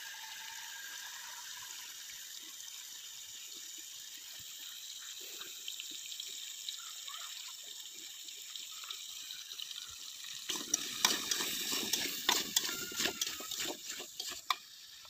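Potatoes frying in oil in a steel kadai, a steady sizzle. From about ten seconds in come louder, uneven scrapes and clinks as the potatoes are stirred with a spoon.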